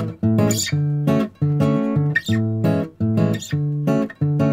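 Intro music: a guitar strumming chords in a steady, even rhythm, each chord held briefly with short breaks between.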